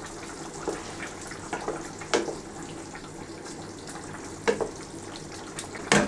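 A wooden spoon stirring a simmering beef-and-vegetable stew in a steel pot over a steady watery bubbling and hiss, with a few short knocks against the pot.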